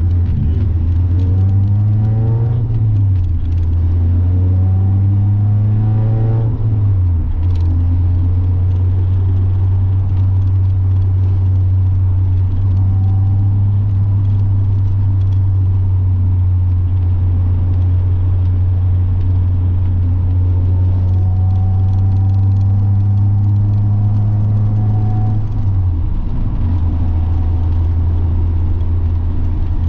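Mazda Miata's four-cylinder engine pulling through the gears. The note rises and drops back twice in the first seven seconds as it upshifts, then holds steady at cruise, with another drop in pitch near the end.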